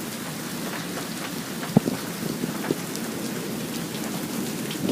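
Steady rain pouring down during a thunderstorm, with a few sharp, close drops or drips striking a surface, the loudest just under two seconds in.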